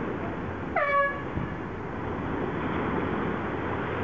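Race finish horn giving one short blast of about half a second, about a second in, its pitch dipping as it starts: the signal that a boat has crossed the finish line. Steady wind noise on the microphone runs under it.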